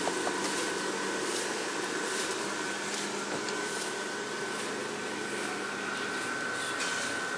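Electric blower fans of inflatable Halloween lawn decorations running, a steady whir with a thin high whine.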